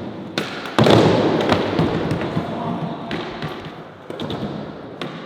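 Skateboard sounds: sharp board clacks, then a loud landing about a second in, followed by the wheels rolling away with a fading rumble and a few more clicks.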